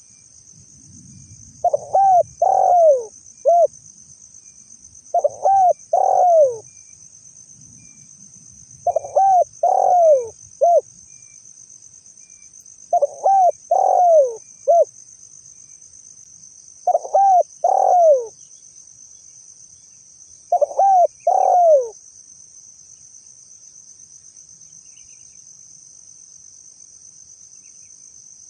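Spotted dove (tekukur) cooing: six phrases of two or three arched coo notes, one about every four seconds, stopping about 22 seconds in. A steady high insect trill runs underneath the whole time.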